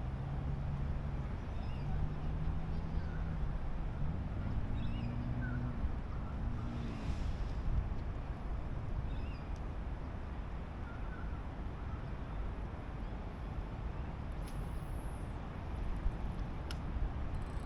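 A low motor drone that glides up and down in pitch around the middle and then fades, over a steady outdoor noise haze, with a few faint high bird chirps.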